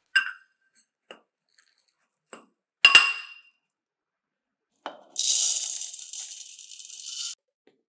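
Glass kitchenware clinking: a sharp ringing clink near the start, a few light clicks, and a louder ringing clink about three seconds in. Then dry oats are poured into a bowl, a high, dry hiss lasting about two seconds.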